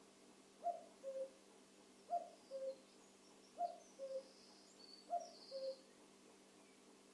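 Male common cuckoo calling "cuck-oo" four times, about a second and a half apart, each call a higher note falling to a lower one. Faint high chirping from another bird comes in midway, over a faint steady hum.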